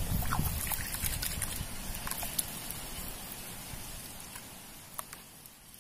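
Outdoor background noise with scattered small clicks and a crackle, the loudest near the start, fading out gradually toward the end.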